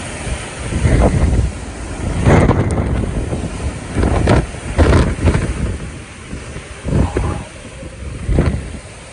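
Typhoon wind gusting hard against the microphone, a rough rushing noise that swells and drops in irregular gusts about once a second.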